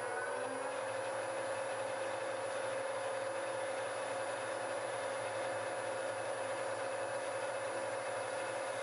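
Warco VMC milling machine's spindle running, its pitch still rising just after the start as it finishes spinning up, then holding a steady whine.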